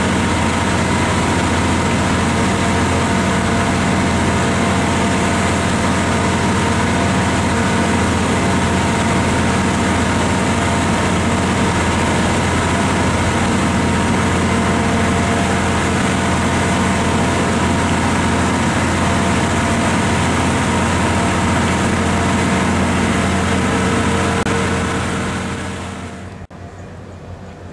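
Steady drone of a ferry's diesel engine heard on board, a hum of several steady tones over a rushing noise, fading away near the end.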